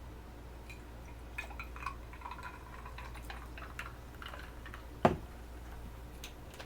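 Pepsi being poured into a glass, with faint fizzing and small ticks. A single sharp knock about five seconds in is the loudest sound.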